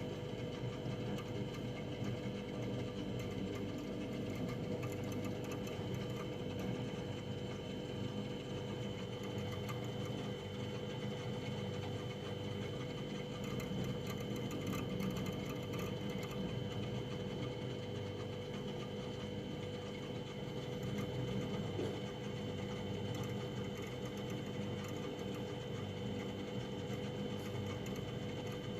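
Household freezer running: a steady mechanical hum with constant tones held over it.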